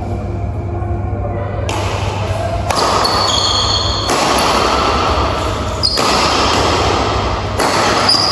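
Badminton rally on an indoor court: racket strikes on the shuttlecock every one to two seconds, each trailed by a wash of echo in a large hall, with thin high squeaks of shoes on the court floor.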